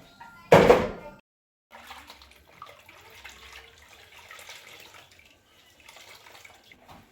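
A brief rush of water lasting under a second, then faint clinks and rustles of kitchen items being handled.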